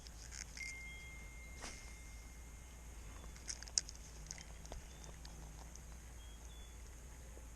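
Faint outdoor evening ambience with scattered sharp clicks and ticks, the loudest almost four seconds in, over a steady low hum and high hiss; a thin steady whistle sounds from about half a second in to about three seconds.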